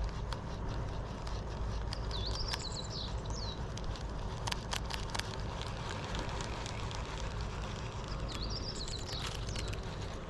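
Outdoor ambience: a steady low rumble with scattered clicks and crackles, and a bird's high warbling call heard twice, early and again near the end.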